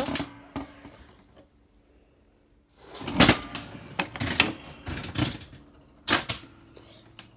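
Plastic clicks and rattles from a toy machine being worked by hand: a quiet spell, then a couple of seconds of clattering about three seconds in, and one sharp click near the end.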